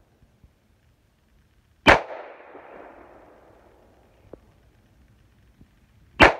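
Two single shots from a 9mm gun, about four seconds apart, each a sharp crack followed by a fading echo; the second comes near the end.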